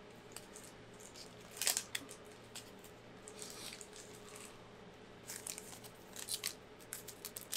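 Faint rustles and clicks of 1990 NBA Hoops trading cards being handled and sorted, a few short ones about two seconds in and a cluster near the end, over a faint steady hum.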